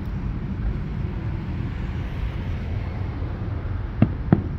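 Steady low outdoor rumble, then two sharp booms of distant aerial firework shells exploding, about a third of a second apart near the end.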